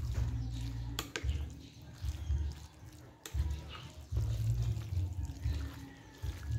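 Spaghetti in tomato sauce being tossed with a metal spoon and fork in a glass baking dish: wet squelching, a few sharp clinks of metal on glass, and a low, uneven rumble.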